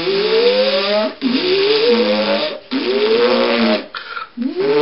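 A person's voice imitating a machine powering up: a rising, whirring hum with a hiss over it, repeated four times, each lasting about a second, as the sound effect for a time machine being switched on.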